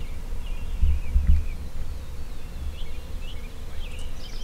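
Songbirds chirping and singing with many short, quick notes, over a steady low rumble that swells briefly about a second in.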